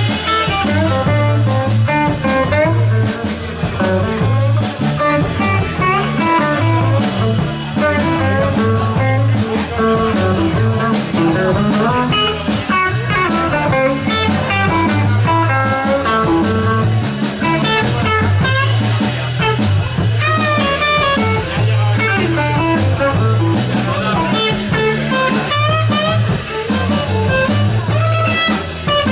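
Live blues band playing an instrumental passage: an electric guitar solo of quick runs over a steady electric bass line and drum kit.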